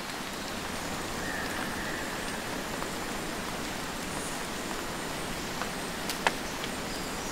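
Steady rain falling, an even hiss with a few sharp drop-like taps, the loudest about six seconds in.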